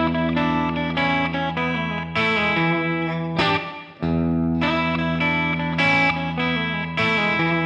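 Electric guitar with light distortion playing an E major blues phrase, the open low E string ringing steadily under notes played on the higher strings. The phrase breaks off at about four seconds and starts again.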